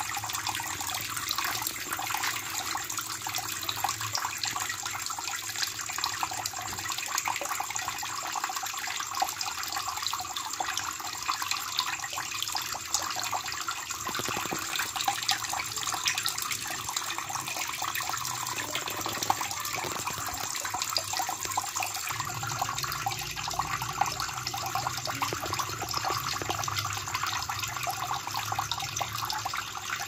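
Water pouring from a pipe into a small fish pond: a steady stream splashing onto the water surface, with small splashes and drips.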